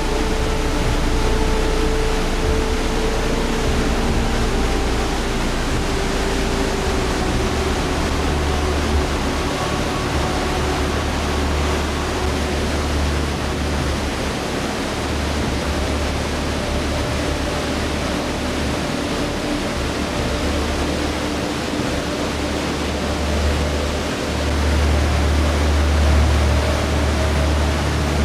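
Large waterfall: a loud, steady rush of falling water with a heavy deep rumble underneath.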